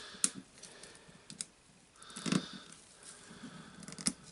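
Sharp metal clicks and scrapes of a screwdriver prising the spring ring off the clutch of a Makita HR2811 rotary hammer. There are a few separate clicks, with a heavier knock about two seconds in.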